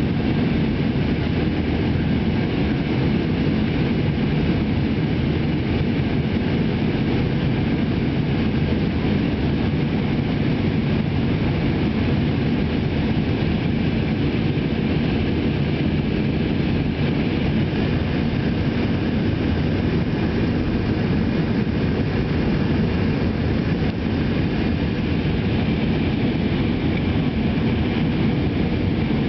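Jet airliner cabin noise during the climb after takeoff: the engines and the rush of air past the fuselage make a steady, even low drone with a fainter hiss above it.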